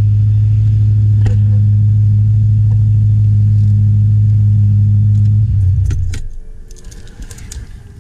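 ESS VT2-625 supercharged BMW E92 M3 S65 V8 idling steadily, then switched off about six seconds in. A few light clicks and rattles follow.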